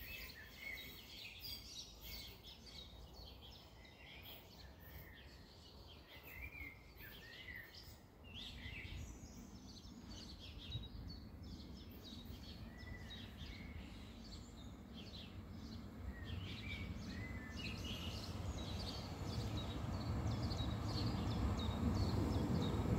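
Small birds chirping, while a low rumble from an approaching red regional diesel multiple unit starts about eight seconds in and grows steadily louder as it nears.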